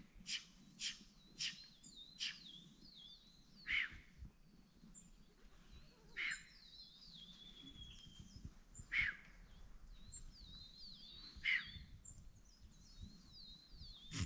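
Wild birds calling and singing: a sharp, downward-sweeping call is repeated, several times in quick succession at first and then about every two to three seconds. Faint, high twittering song runs beneath it.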